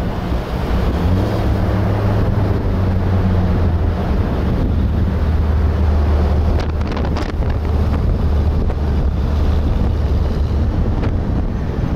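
Wind buffeting the microphone of a camera on a moving car, over the steady low hum of the car's engine and tyres on the road.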